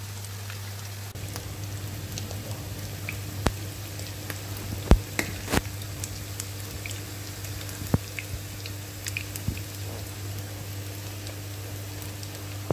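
Sweet corn patties shallow-frying in hot oil in a pan: a steady sizzle with scattered crackles and pops, a few sharper pops in the middle. A steady low hum runs underneath.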